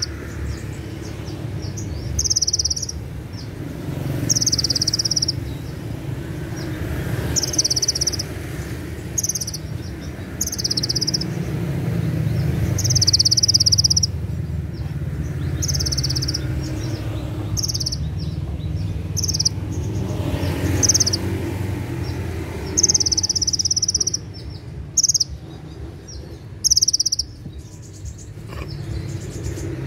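Male kolibri ninja sunbird singing: a run of shrill, high-pitched trilling phrases, each a second or less long, repeated every one to two seconds with short sharp notes in between. These are the rapid 'cililin' shots that bird-keepers prize as sharp on the ear. A low rumble sits underneath.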